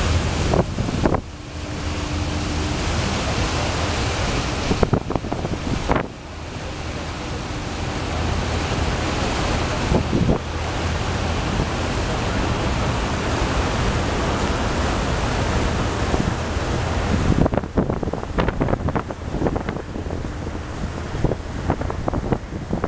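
Wind buffeting the microphone over the wash of choppy sea water, a steady rushing noise with a heavy low rumble.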